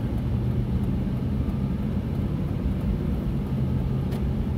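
Truck driving on the road, heard from inside the cab: a steady low engine and road drone.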